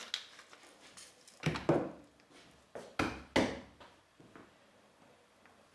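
A few short knocks of kitchen items being handled. One comes about a second and a half in, then two close together around three seconds in, with fainter ones after.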